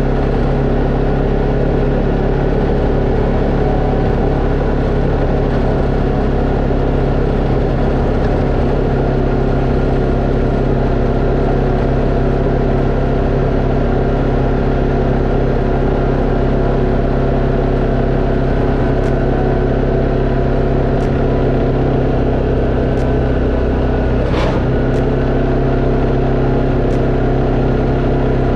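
Tracker Off Road 700 ATV engine running at a steady speed along a dirt trail, with one brief knock late on.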